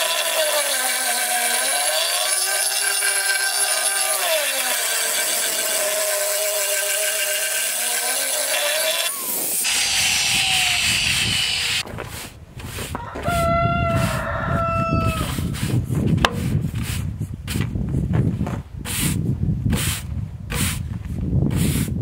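Electric angle grinder with a pad running against a concrete countertop slab, its pitch sagging and recovering as it is pressed into the concrete, then shutting off about ten seconds in. After that a pole-mounted brush scrubs the wet concrete in repeated strokes, with a brief high squeak about thirteen seconds in.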